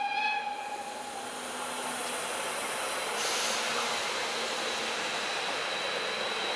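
Class 52 steam locomotive 52 4867 with its train: a high ringing tone fades out in the first second, then a steady hiss that grows brighter about three seconds in.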